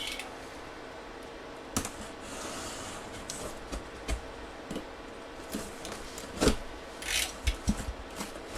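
A cardboard box being handled and opened by hand: scattered knocks, scrapes and rustles, the sharpest knock about six and a half seconds in, with several more soon after.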